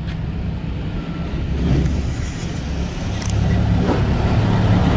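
Low rumble of a motor vehicle engine running close by, growing louder about three seconds in.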